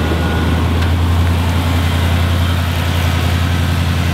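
1985 Chevrolet Caprice's engine idling steadily with its hood open.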